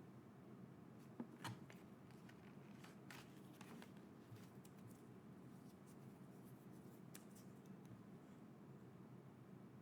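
Near silence with a few faint clicks and light rustles of packaging being handled, a small cluster about a second in and a few more later.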